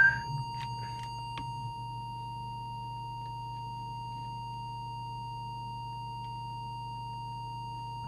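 Steady audio test tone of about 1 kHz from a signal oscillator modulating a CB radio's FM transmitter during mic-gain/deviation alignment, over a low steady hum, with a few faint clicks in the first second and a half.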